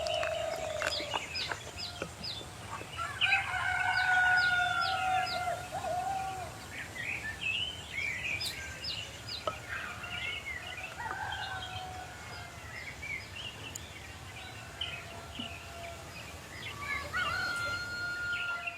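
Birds calling, with several long drawn-out calls and many short repeated chirps.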